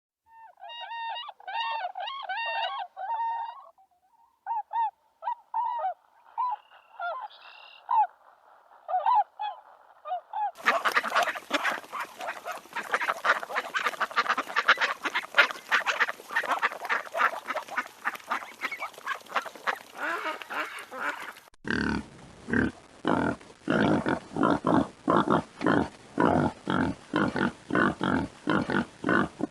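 Waterfowl calling. At first a few birds give separate, repeated calls. From about ten seconds in it becomes a dense, crowded flock. From about twenty-one seconds the calls come as steady pulses, roughly two a second.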